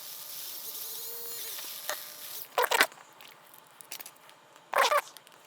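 Polishing a clear plastic model part: a steady hiss for about two seconds, then two short scratchy rubbing sounds about two seconds apart.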